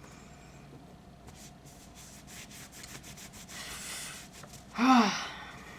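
Soft rubbing and rustling of hands working a silicone hair oil into hair, with a breathy hiss about four seconds in and a short hummed "mm" near the end.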